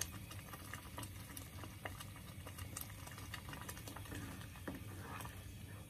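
Chile salsa bubbling as it comes to the boil: faint, irregular small pops and plops over a low steady hum.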